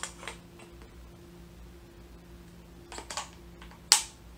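A few light handling clicks, then near the end one sharp, loud pop: a Field One Force paintball marker with the Nucleus engine firing once, cold from a freezer test.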